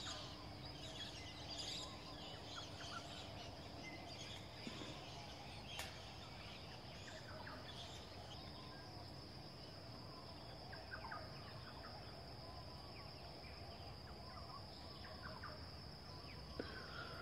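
Faint outdoor ambience: a steady high-pitched insect drone with scattered short bird chirps over a low background rumble.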